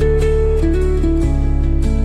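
Background music played on acoustic guitar, with plucked notes and chord changes.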